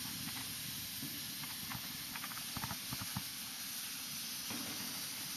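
Steady hiss of room tone and recording noise, with a cluster of faint ticks and knocks about two to three seconds in.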